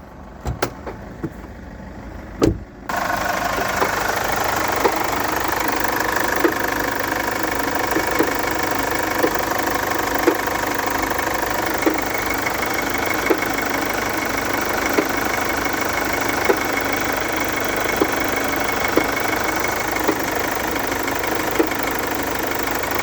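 Chevrolet Captiva 2.2 diesel four-cylinder engine idling with a sharp knock every second or two, which the owner suspects comes from the timing chain drive (tensioner and guides). The engine sound comes in abruptly about three seconds in, after a few clicks.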